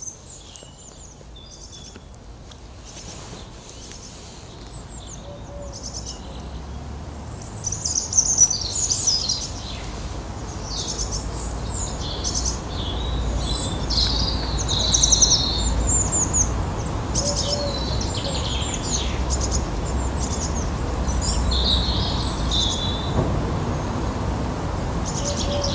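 Small songbirds chirping and singing in short, quick phrases, busiest in the middle, over a steady low rumble that grows stronger after the first few seconds.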